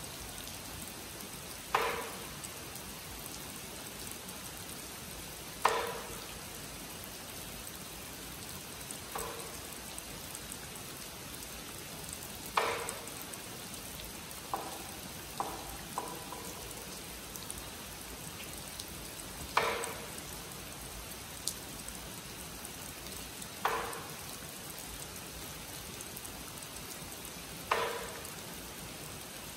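Steady rain falling on a pond and foliage, with a wooden clapper struck in single sharp knocks about every four seconds, each ringing briefly: the signal calling monks to zazen. A few lighter knocks come in quick succession about halfway through.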